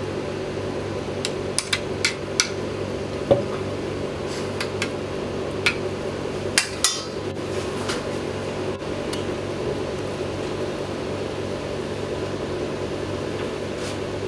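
A metal spoon clinks and taps against a stainless-steel ring mould and a bowl as scallop tartare is spooned and pressed into the mould. The taps are scattered through the first half, the sharpest about three seconds in, and stop after about seven seconds. A steady mechanical hum of kitchen machinery runs underneath throughout.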